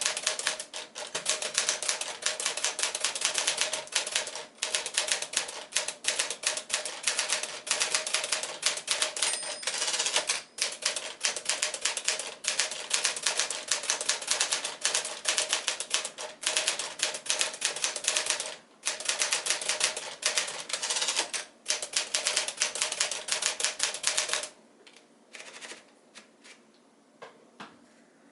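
1954 Smith-Corona Silent manual typewriter being typed on at a fast, steady pace: a rapid run of keystrokes broken by a few brief pauses. Near the end the typing stops, leaving only a few faint clicks.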